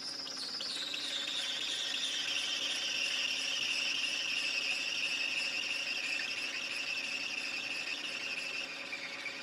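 Metal lathe cutting tool squealing as it cuts into a spinning bronze bushing to shorten it. The high whine slides down in pitch over the first couple of seconds, then holds steady and eases off near the end, over the lathe's low running hum.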